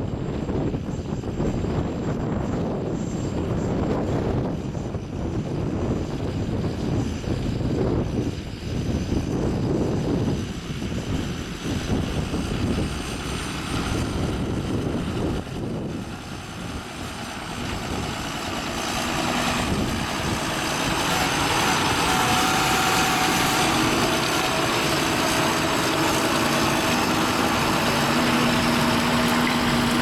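John Deere 6930 tractor's six-cylinder diesel engine working under load while pulling a reversible plough, with gusty wind rumbling on the microphone in the first half. The engine grows louder and steadier in the last third as the tractor comes close.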